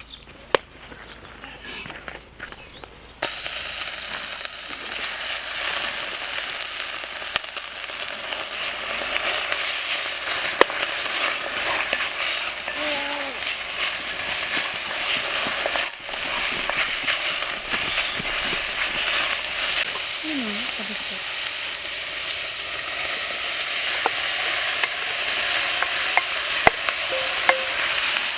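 Food frying in a hot pan: a steady sizzle that starts abruptly about three seconds in, with a few light clicks.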